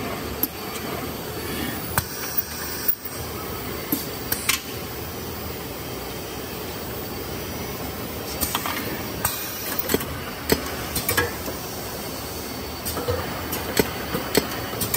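Bouillon cube pressing and tray-packing machine running: a steady mechanical hum with irregular sharp clacks from its pneumatic pick-and-place heads and air-cylinder tray pushers.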